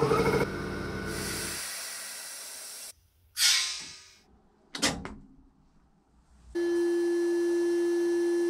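Electric piston air compressor running, fading out in the first two seconds. Then a loud hiss of compressed air released from the tank, about three seconds in, dying away, and a shorter sharp burst of air about five seconds in. A steady pure tone starts near the end.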